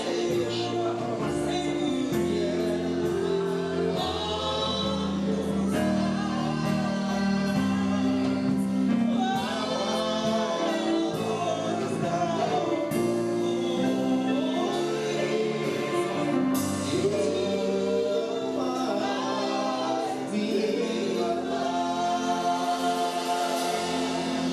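Gospel music: a choir singing a continuous song over held chords.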